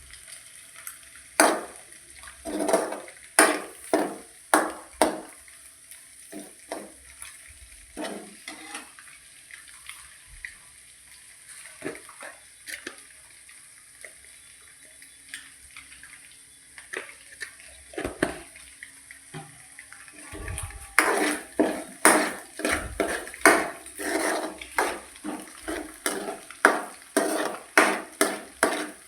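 A metal utensil clinking and scraping against cookware while food is stirred. The strikes come irregularly at first, then from about two-thirds through settle into a steadier run of about two a second.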